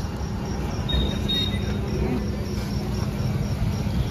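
Busy outdoor street ambience: a steady low rumble with indistinct background voices, and a faint high chirp repeating evenly about three times a second.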